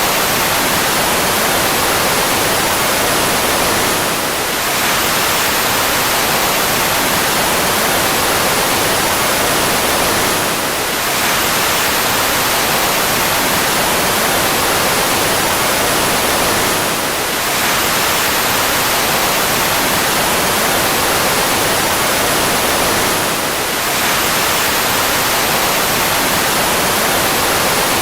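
Fighter jet engine running in a steady rushing roar with a faint high whine that slides slightly lower, repeated as a loop: the sound dips briefly and restarts about every six seconds.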